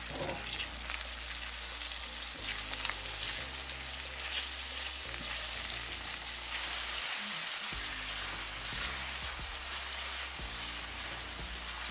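Bite-sized chicken thigh pieces sizzling in oil in a hot skillet as they are stir-fried, with a silicone spatula stirring and scraping across the pan now and then.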